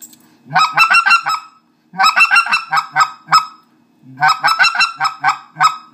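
Specklebelly goose call blown in three short bursts of rapid clucks, about six to eight sharp notes in each, imitating white-fronted geese clucking to one another; the caller's voice is put into the call to give the gravelly sound of a mature bird.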